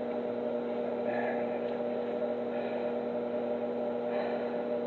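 Steady electrical hum with a few faint, brief higher sounds over it.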